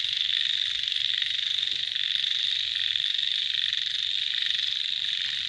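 Dense chorus of calling animals from a rice field after a rainy night, countless voices blending into one loud, steady, high-pitched drone.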